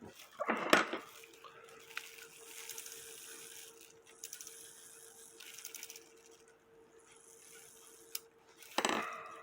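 Small sharp clicks and taps with light scratchy handling noise as parts of a cuckoo clock movement and its count-wheel lever are worked by hand. The loudest clicks come near the start and near the end, and a faint steady hum runs underneath from about a second in.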